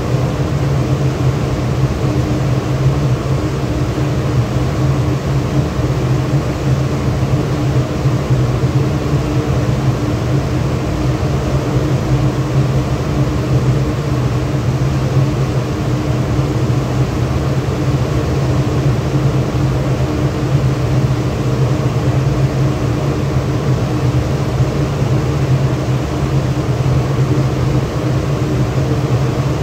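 Ship's machinery running with a loud, steady drone: a low hum with a few fixed tones over an even roar, unchanging throughout.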